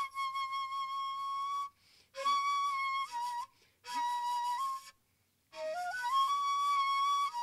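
Solo shakuhachi, the Japanese end-blown bamboo flute, playing long held notes separated by short pauses, a few of them stepping down slightly in pitch. Near the end a phrase climbs through several notes into a long held high note.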